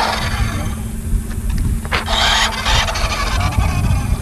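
Radio-controlled model car's motor whining in two short bursts about halfway through, over a steady low rumble of wind on the microphone.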